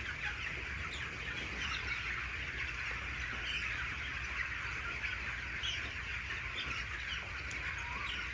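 A flock of 16-day-old broiler chicks peeping and chirping continuously, many small calls overlapping, over a low steady hum.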